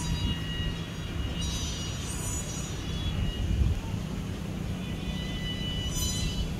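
Strong wind buffeting the microphone as a steady low rumble. Over it, a faint high buzzing hum swells about a second and a half in and again near the end: the sack-ribbon hummer (sendaren) on a small pegon kite, singing in the gale.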